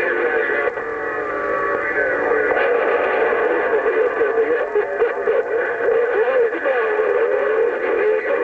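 CB radio receiver audio on the 27.025 MHz channel, with crowded distant signals overlapping: continuous warbling, wavering whistle-like tones over garbled sound.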